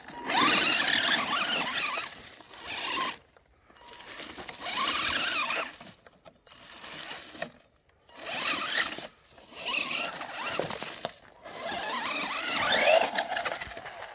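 Maverick Phantom XT electric RC car driving off-road in about five throttle bursts with short pauses between them. Each burst is a motor whine that rises and falls in pitch, over a hiss of noise.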